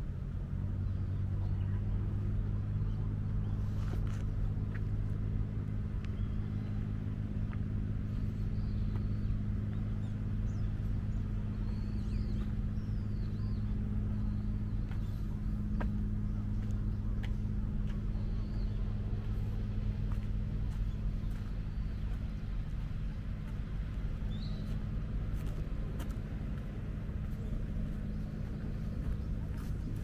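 An engine running steadily with a low, even hum, with a few faint high chirps over it.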